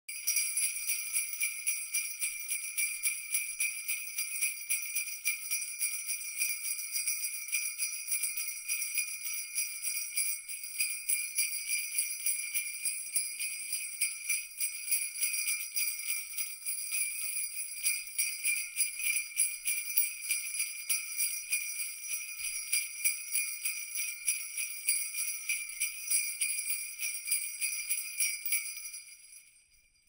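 Jingle bells shaken continuously in a fast, dense jangle with a bright ringing shimmer, fading out near the end.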